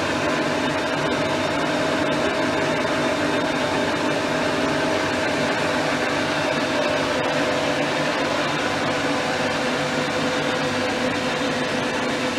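Dean Smith & Grace 1307 gap bed lathe running with its carriage under power feed along the bed (Z axis): a steady mechanical running noise with a few held tones from the gearing.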